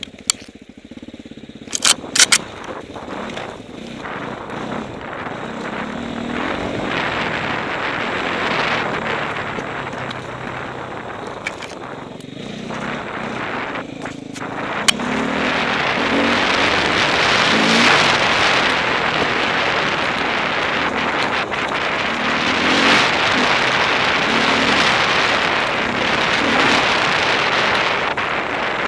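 Enduro dirt bike engine running under changing throttle as the bike is ridden along a trail, heard from a helmet-mounted camera. It is quieter at first and louder from about halfway on. A few sharp knocks come about two seconds in and one more near the middle.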